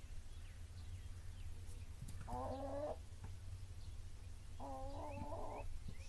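Domestic hen calling twice, each a short, level-pitched drawn-out call, the first about two seconds in and a longer one near five seconds, over a faint low steady hum.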